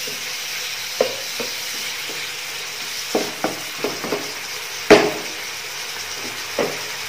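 Meat pieces sizzling in oil in a non-stick frying pan, with a steady hiss, while a spatula stirs them and knocks against the pan about eight times; the loudest knock comes about five seconds in.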